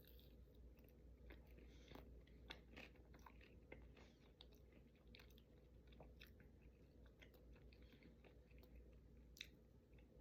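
Faint close-up chewing and crunching of crispy plant-based barbecue wings, with scattered small irregular mouth clicks.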